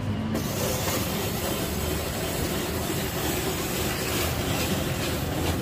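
Steady, dense street noise with a low traffic rumble underneath, starting suddenly just after the start.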